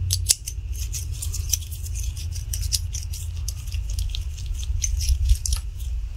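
Metal cleaning tool scraping carbon fouling off a steel AR-15 bolt: irregular, quick scratchy clicks over a steady low hum.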